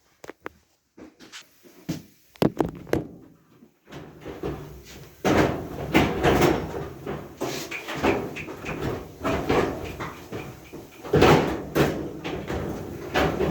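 Sharp clicks and knocks of dryer panels and parts being handled during disassembly, then from about five seconds in a louder, continuous clatter and scraping.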